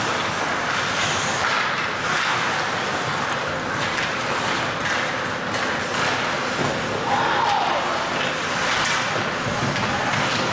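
Ice hockey game in play in a rink: a steady noisy wash of skating and crowd, broken by scattered sharp clacks of sticks and puck, with a voice calling out about seven seconds in.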